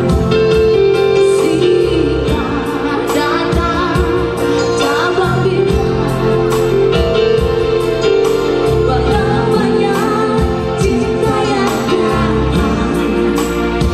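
A woman singing a song into a microphone over electronic keyboard accompaniment with a steady beat; near the end a man joins her in a duet.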